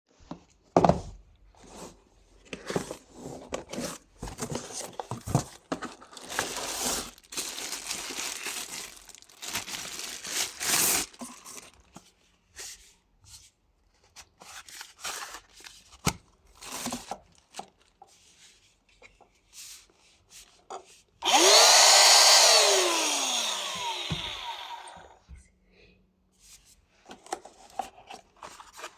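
Rustling and clicking as a small device and its packaging are handled. Then a 70mai mini cordless handheld vacuum's motor switches on with a loud whine, switches off and winds down, its pitch falling as it fades over about three seconds.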